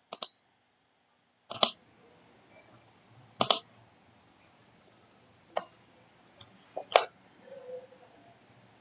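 Computer mouse clicking: about six single and doubled clicks, spaced irregularly a second or two apart.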